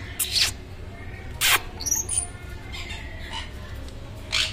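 Caged parrots giving three short, harsh screeches, about a third of a second in, about a second and a half in, and near the end, with softer chirps between them.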